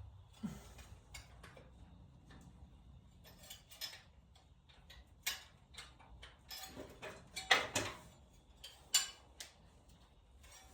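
Scattered metal clicks and knocks of a spark plug socket and extension being worked against a spark plug that the socket won't seat on. The knocks are sparse at first and come in a louder cluster about three-quarters of the way through.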